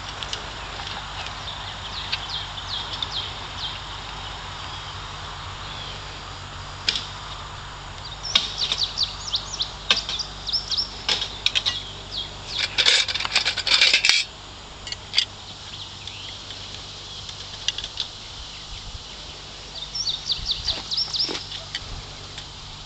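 Barbed wire and a hand wire-tightening tool clinking and rattling as the strands are tightened, in bursts of quick metallic clicks, busiest around the middle. Birds chirp now and then.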